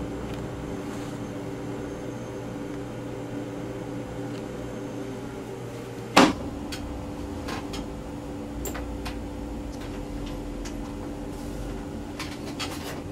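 A steady electrical hum, with one sharp, loud knock about six seconds in, then scattered light clicks and taps.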